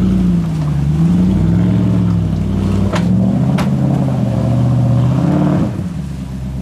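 Land Rover Discovery's V8 engine revving up and down under load as the truck climbs a steep bank out of a creek, with two sharp knocks about three seconds in. The engine note falls away near the end as the throttle is let off.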